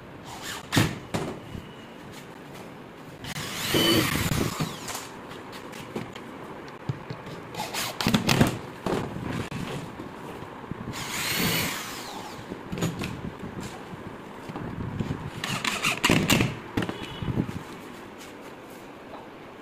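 Cordless drill running in about four short bursts against a laminated wooden box panel, its motor whine rising and falling with each burst, with scattered knocks and clicks between.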